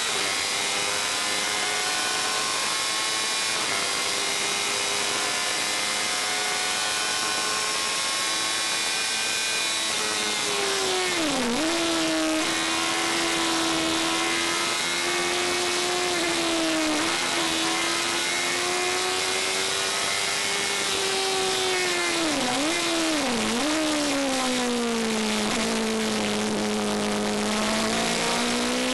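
Race car engine heard from inside the open cockpit, running hard at high revs under wind and road noise. Its note drops sharply several times with gear changes and lifts, sinks low for a few seconds near the end as the car slows for a corner, then climbs again under acceleration.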